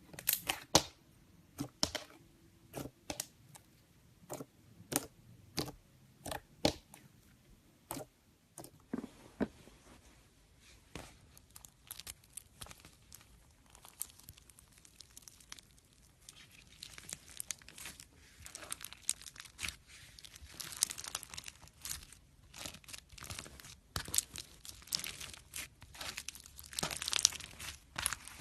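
Slime being worked by hand: first a run of sharp pops, one or two a second, then a denser crackling and crinkling that grows busier toward the end.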